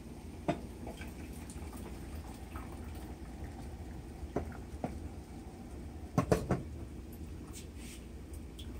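Water boiling in a pot, with a glass pot lid clinking as it is lifted about half a second in. Near the end, a metal ladle knocks against the pot three or four times in quick succession, the loudest sounds.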